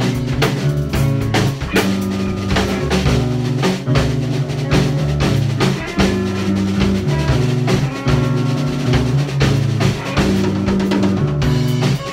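Rock band playing an instrumental passage with no vocals: drum kit with kick and snare, electric guitar and bass guitar holding low notes.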